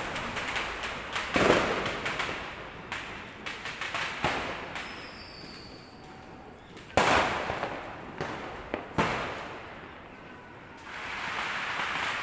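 New Year fireworks and firecrackers going off: a scatter of small pops and crackles throughout, with louder single bangs about a second and a half in, at about seven seconds (the loudest), and at about nine seconds.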